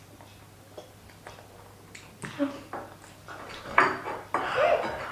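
Plates knocking, clattering and scraping on a table as two children push their faces into them to eat sweets without hands. There are a few faint clicks at first, then busier, louder knocks and rattles over the second half.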